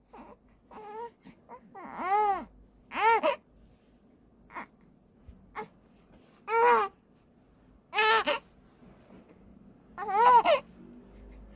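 Newborn baby with the hiccups crying in short separate wails, about five over the stretch, with brief quiet gaps and a few faint short sounds between them.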